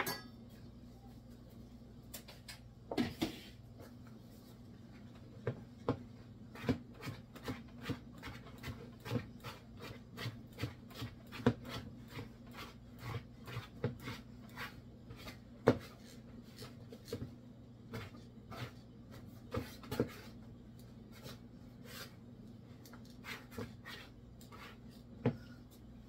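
Danish dough whisk stirring thick, wet bread dough in a plastic mixing bowl: irregular soft knocks and scrapes against the bowl, several a second at times. A faint steady low hum lies underneath.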